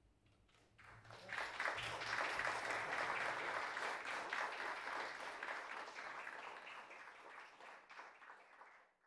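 Audience applauding: a few scattered claps, then steady applause from about a second in that slowly thins and is cut off just before the end.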